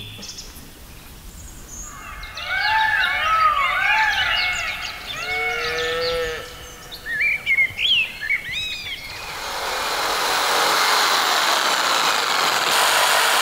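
Birds calling, a run of repeated arching calls with a few quicker, rising chirps. From about nine seconds in, an electric jigsaw cutting wood fades in and runs steadily.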